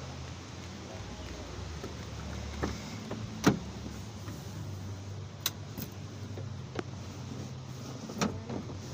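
About half a dozen sharp clicks and knocks from handling the open cab and seats of an Isuzu Elf minibus, the loudest about three and a half seconds in, over a low steady hum.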